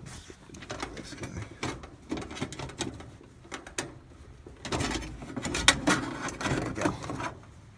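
Hand screwdriver working screws out of an air handler's sheet-metal cabinet: irregular clicks, scrapes and metallic rattles, busiest and loudest from about halfway through to near the end.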